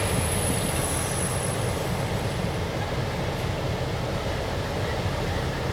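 Diesel locomotives running and rolling on the rails, a steady low rumble. A faint high squeal fades out after about two seconds.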